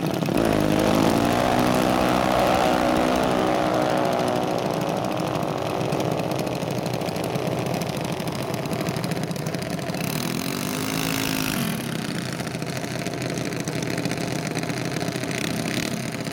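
A dragster launching off the starting line, its engine climbing in pitch as it accelerates away down the track and grows fainter. About ten seconds in, a second engine revs up briefly over steady engine noise.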